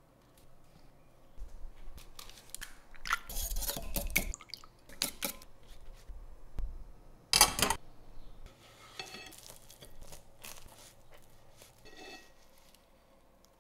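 A run of crackles and crunches, the loudest a little past the middle, as crisp baked puff pastry is cut apart with a fork. A fork scraping and ringing faintly on a ceramic plate can be heard near the end.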